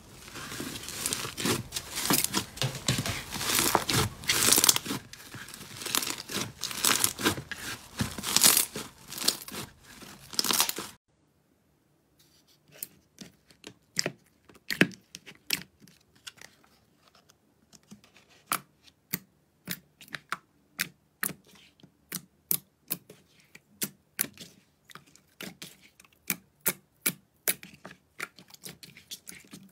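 Slime being handled, stretched and squished: a dense crackling, tearing sound for about eleven seconds, then after a brief silence a run of sharp separate pops and clicks, several a second.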